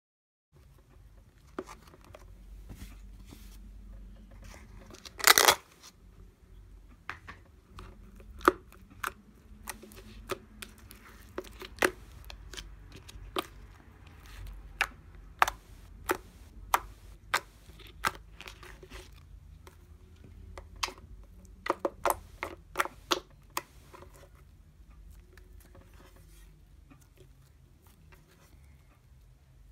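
Pearl slime being stirred with a wooden stick in a glass bowl and then squished, pressed and folded by hand. It makes a scattered run of sharp wet pops and clicks, with one loud crackle about five seconds in and a quick cluster of pops a little past twenty seconds.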